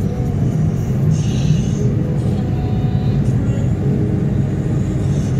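Steady low rumble of a car cruising at motorway speed, tyre and engine noise heard from inside the car.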